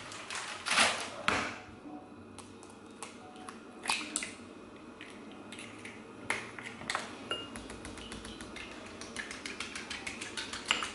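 A few separate kitchen knocks and clicks, then a fork beating a raw egg in a small glass bowl: a fast run of light clinks of the fork against the glass, starting about nine seconds in.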